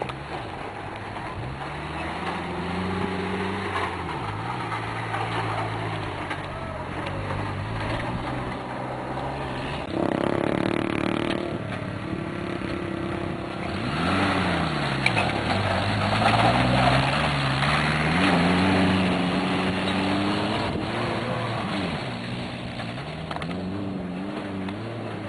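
BMS Ranch Pony 1000 side-by-side UTV's engine revving up and down as the vehicle crawls over rocks, its pitch repeatedly rising and falling, with a louder stretch about ten seconds in.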